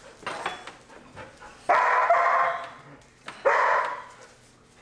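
A dog barking twice, about a second and a half apart.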